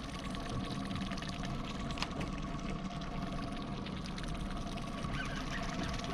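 Boat's outboard motor running steadily at trolling speed, with water washing at the stern. Faint ticking of a baitcasting reel being cranked as a hooked coho salmon is reeled in.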